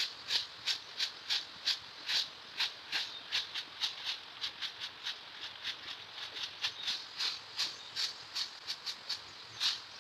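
Long-handled stiff stick broom swept briskly across a concrete yard, brushing dry fallen leaves along. The strokes come as short, scratchy swishes, about three a second and unevenly spaced.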